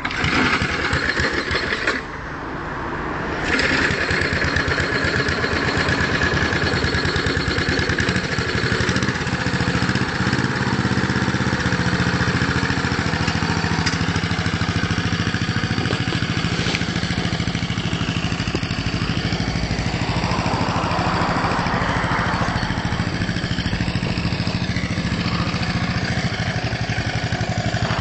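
1977 Mountfield Minor M4 lawn mower's Briggs & Stratton 3 HP single-cylinder four-stroke engine running steadily on its first run after four years standing, with its auto-choke carburettor not yet overhauled. Its sound drops briefly about two seconds in, then picks up again.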